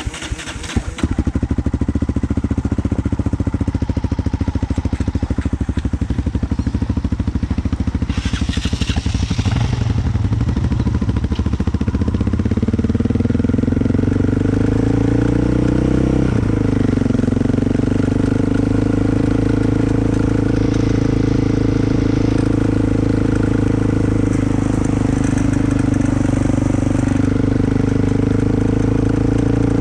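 Off-road riding vehicle's engine starting off and running under way; about halfway through its pitch climbs as it speeds up, then holds steady. A short hiss sounds early on.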